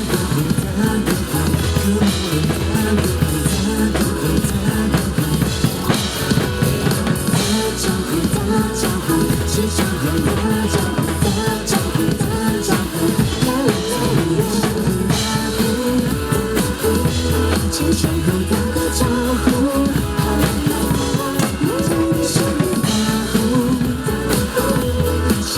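Drum kit played along to a pop-rock song's backing track: a steady beat of bass drum, snare and cymbals over bass and melody.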